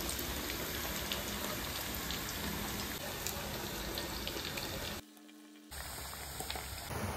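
Hot oil sizzling steadily as potato chunks fry in a karahi, with a brief dropout about five seconds in.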